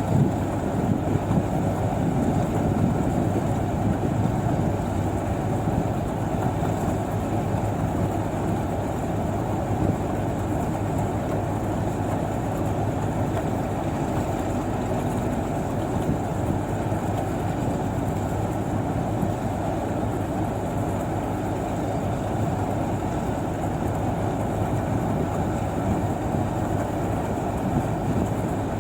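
Combine harvester running steadily, a continuous heavy engine and machinery noise with no breaks.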